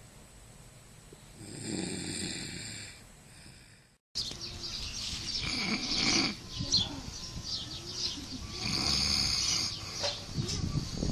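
A person snoring: one snore swells about two seconds in. After a brief cut about four seconds in, a louder, busier stretch of snoring follows, with squeaky high sounds.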